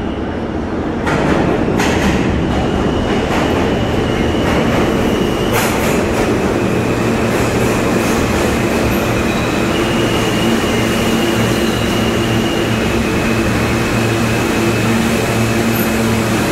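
R160 subway train pulling into the station: a loud rumble of wheels on rail, rising about a second in, with several clacks over rail joints in the first few seconds. Steady high whining tones follow and shift in pitch as the train slows alongside the platform.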